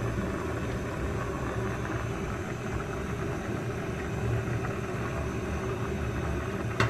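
Steady low rumble of a gas stove burner under a pot of vegetables at the boil.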